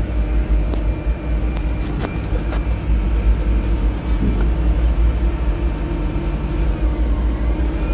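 Steady low rumble and hum of a running air-cooled chiller's machinery and fans, with a few light metallic clicks from handling hose fittings.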